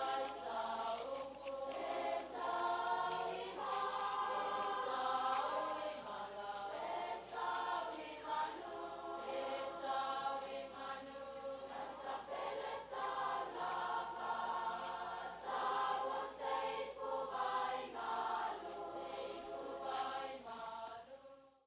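A choir singing: several voices holding and changing chords together, fading out at the very end.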